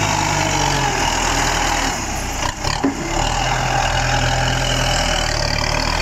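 Farm tractor's diesel engine running steadily as it works a muddy field, with a short dip and a knock about halfway through.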